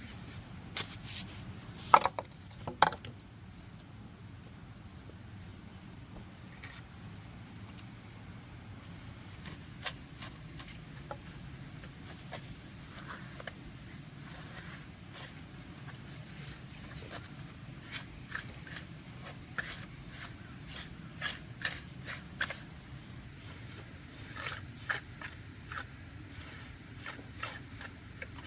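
Work noises from hard objects being handled: two sharp knocks about two seconds in, then scattered light clicks, taps and scrapes over a low steady hum.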